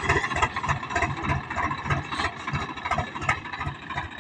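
A tractor's diesel engine running at low speed with a steady, even chug.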